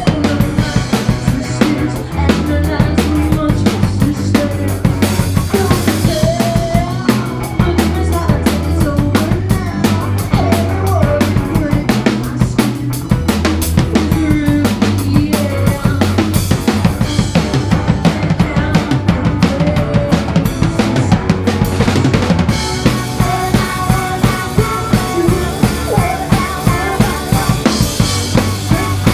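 Live rock band playing loud without vocals: a drum kit drives rapid kick and snare hits over bass and guitar. About three-quarters of the way in the sound fills out with a steady cymbal wash.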